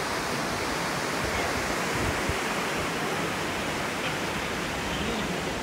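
Steady rushing noise of wind and the moving cruise ship's wake water, heard from the open deck, with wind buffeting the microphone.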